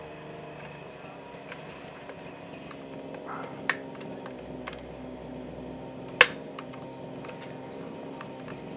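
Small screwdriver prying at the plastic retaining clips of a fuel pump module's housing: light clicks and taps. There is a sharper click between three and four seconds in and the loudest, sharpest click about six seconds in, over a steady low hum.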